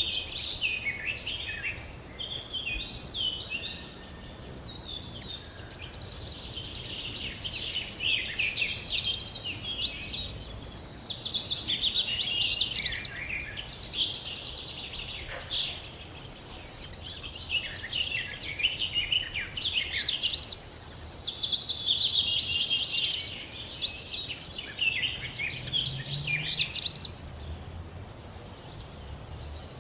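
Songbird singing: a dense run of quick, high chirps and trills that rise and fall in pitch, easing off briefly twice.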